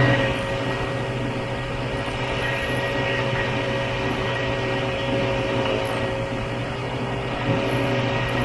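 Vintage snowmobile engine running at a steady cruise, heard from the rider's seat. It eases off slightly right at the start, then holds an even pitch.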